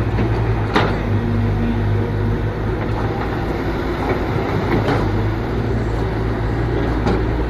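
Excavator running with a steady low hum, with a couple of sharp metallic clanks.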